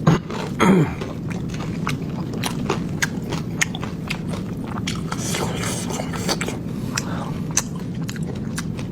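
Close-up chewing and biting of pork, with many sharp wet mouth clicks scattered throughout and a brief sound falling in pitch about half a second in, over a steady low hum.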